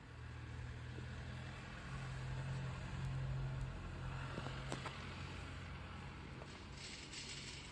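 Domestic cat purring while being stroked: a low, steady hum that swells and eases every second or so, with a brief rustle of fur near the end.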